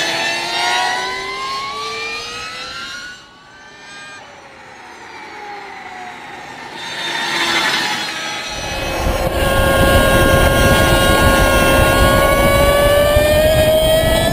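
Energica Ego 45 electric sport bike passing through a corner, its electric motor giving a rising whine that fades away, with a second pass about seven seconds in. From about halfway through, the onboard recording takes over: a steady motor whine that rises slightly near the end, under heavy wind noise.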